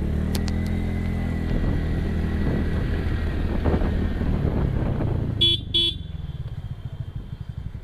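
A small two-wheeler engine running as it is ridden at low speed, with two short horn beeps about five and a half seconds in. After the beeps the engine settles into a quieter, even putter.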